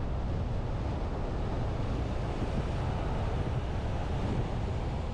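Steady rushing road and wind noise of a vehicle driving at speed on a paved highway, heaviest in the low rumble.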